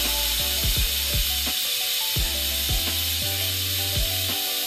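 Pressure cooker venting steam past its whistle weight with a steady hiss as it comes up to pressure. Background music with a steady beat plays underneath.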